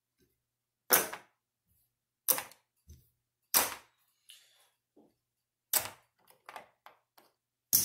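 Casino chips clacking as they are picked up and set down on the craps table and at the chip rack. Five sharp clacks come about every second and a half, with fainter clicks between them.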